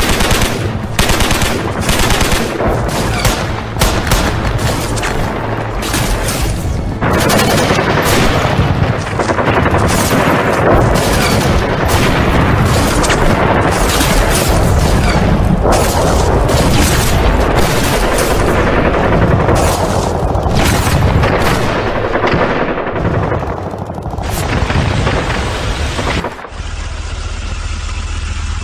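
Battle sound effects: rapid rifle and machine-gun fire mixed with explosions, thickening into continuous blasts and gunfire. About two seconds before the end the shooting stops and a tank engine runs steadily.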